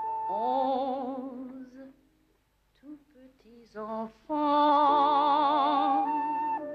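A woman singing with a wide vibrato. She holds a note at the start and breaks off briefly about two seconds in. Then come a few short sung notes and a long, loud held note in the second half.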